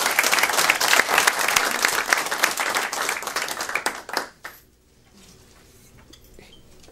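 Small audience applauding, the clapping dying away about four seconds in.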